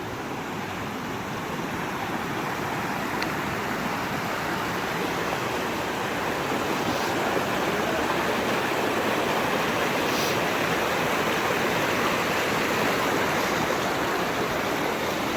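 Steady rush of flowing mountain water, growing gradually louder.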